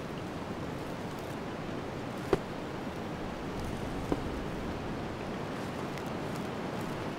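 Steady hiss of a winter wind ambience, with two short sharp pops, one about two seconds in and a fainter one about four seconds in.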